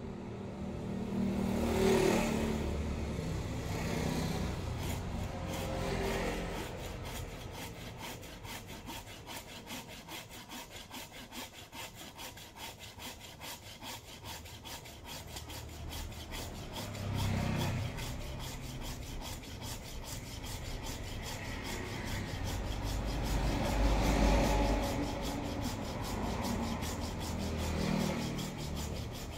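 Small hand saw cutting through a wisteria bonsai trunk: repeated back-and-forth rasping strokes of the teeth in the wood. A couple of dull thumps come about halfway and again near the end.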